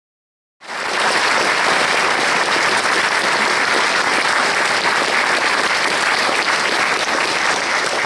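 Audience applauding, a dense steady clapping that cuts in abruptly about half a second in.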